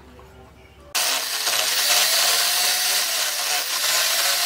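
Electric angle grinder grinding steel: a short lull, then it cuts in suddenly about a second in with a steady high hiss and a motor whine that dips slightly as the disc bites.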